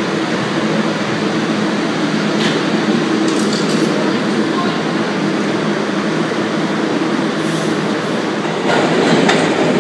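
New York City subway train pulling out of the station past the platform: a loud, steady rumble with a low hum from its motors, swelling a little near the end.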